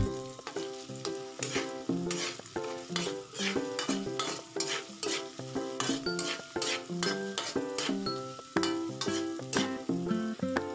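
Garlic and onion sizzling in hot oil in a metal wok, with a metal spatula scraping and tapping against the pan as they are stirred. Background music plays underneath.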